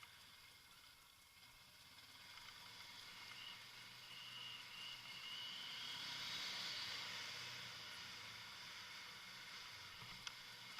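Kawasaki Versys motorcycle riding, heard faintly under a steady hiss, with a faint whine that rises in pitch between about three and six seconds in. There is a single short click near the end.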